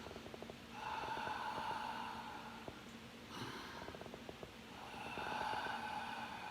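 A sleeping person breathing with a congested nose, two slow breath cycles. Each is a crackling, rattly snore followed by a longer, louder breath through the nose with a slight whistle.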